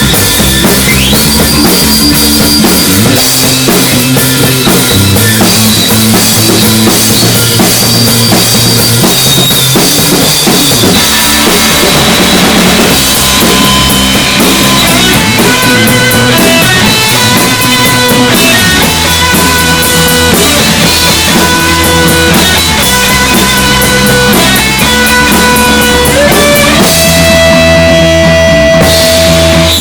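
Live rock band jamming: drum kit and bass guitar keep a steady beat and repeating bass line under noisy electric guitar with long held high tones. Near the end the drums drop out and a single held guitar tone rings on.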